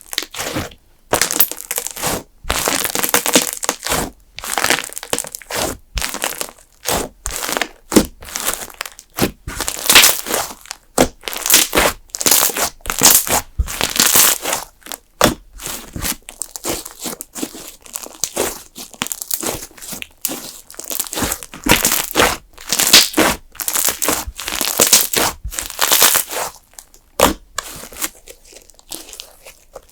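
Thick custard slime being pressed, poked and squeezed by hand, giving a fast, irregular run of short crackly noises that thins out near the end.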